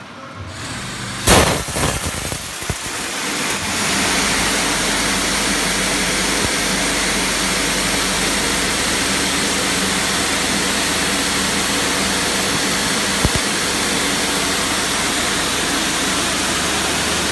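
Pentair Hypro Impact Pro high-pressure wash nozzle spraying a narrow, focused jet of water onto test panels: a loud, steady hiss of the jet and its spray, with a faint steady hum underneath. A loud knock comes about a second in, and the spray builds to full strength by about four seconds in.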